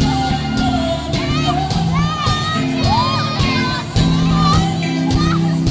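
Live band playing a pop-rock song over a concert PA, with steady bass notes and drum hits, while the audience screams and cheers over the music.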